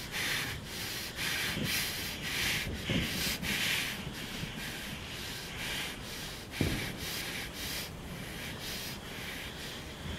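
Fast, frightened breathing through hands held over the mouth: a quick, uneven run of noisy breaths. A few dull low thumps sound under it, the loudest about six and a half seconds in.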